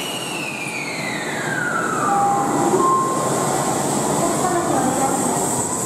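Kintetsu 7000 series subway train accelerating away, its GTO-thyristor VVVF inverter whining over the running noise of the motors and wheels. The whine falls in pitch over about two and a half seconds, briefly holds a couple of steady notes, then starts to rise again.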